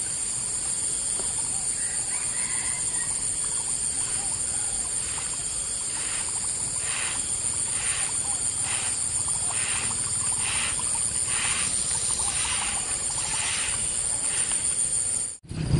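Outdoor ambience: a steady high-pitched insect drone, with a repeated animal call about one and a half times a second through the middle. The sound cuts off abruptly near the end.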